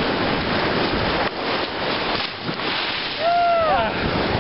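Ocean surf washing and rushing, with wind on the microphone. About three seconds in, a short cry falls in pitch.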